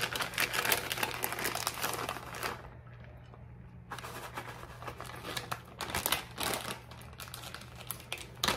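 Plastic bag of shredded sharp cheddar crinkling and rustling as the cheese is shaken out of it, with a short lull of about a second partway through.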